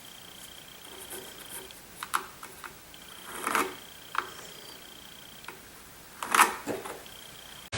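Scattered light clicks and short scrapes of small objects being handled on a wooden cutting board, over a faint steady high-pitched whine. A loud noise breaks in suddenly at the very end.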